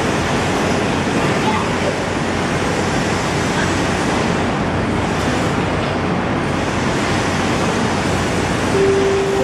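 An SMRT MRT train approaching and drawing into an elevated station, heard as a steady rushing rumble. A steady tone sounds near the end.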